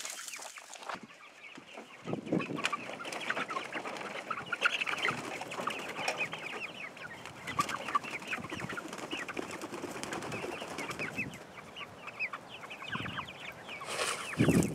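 A flock of hens clucking and chattering steadily as they crowd in to feed, with a brief louder rustling sound near the end.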